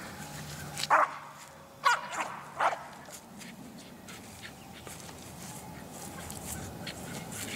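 An American Eskimo Dog barking: about four short, loud barks in the first three seconds, the last three close together.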